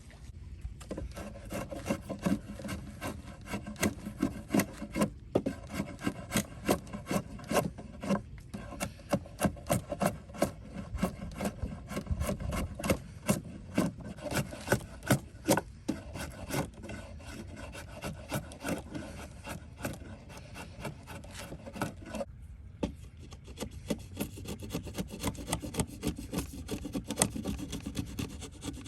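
Hand rasp scraping along a wooden axe handle being shaped, in a long run of repeated strokes with a few brief pauses.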